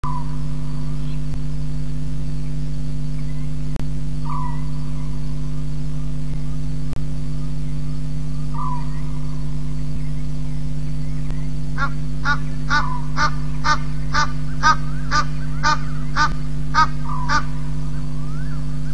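An unseen animal calling: three single calls spaced a few seconds apart, then a run of about a dozen harsh calls at roughly two a second that swells and then fades. The uploader takes the caller for a cat. A steady electrical hum from the camera's microphone runs underneath.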